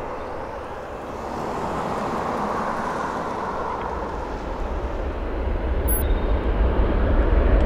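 Boeing 737-700's twin CFM56-7B turbofans spooling up for the takeoff run: a steady jet rush that grows louder from about halfway through, with a deep rumble building underneath.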